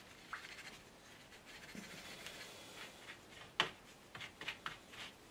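Faint handling noises of painting gear being moved about: a few light clicks and taps, the sharpest about two-thirds of the way through.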